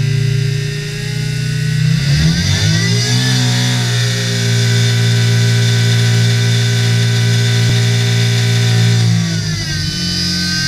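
998cc five-port A-series four-cylinder engine with an AMR500 supercharger, running on an engine dynamometer. The revs climb about two seconds in, hold high and steady for about six seconds, then drop back near the end.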